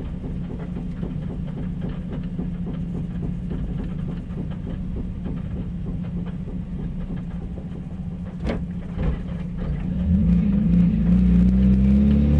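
1992 Mazda Miata's 1.6-litre four-cylinder engine idling with a fast, regular knock, the noise being diagnosed, and a single sharp click about two thirds of the way in. Near the end the engine is revved up.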